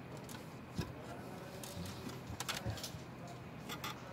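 Handling noise from a stripped Glock 17 slide being picked up and turned in the hands: a soft knock about a second in, then a few light clicks and taps.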